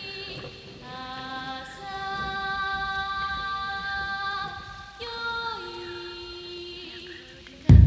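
Slow soundtrack music of long held, wordless voice-like notes that change in steps, with a downward slide about five and a half seconds in. A sudden loud, deep boom comes in at the very end.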